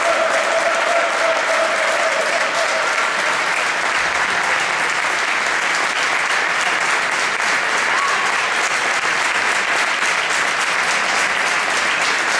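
Crowd applauding, a steady clapping that runs on without pause.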